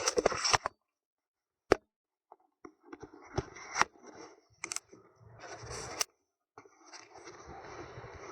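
Scattered clicks and scrapes of a repaired gear shift actuator being handled on the bench, with stretches of dead silence between them.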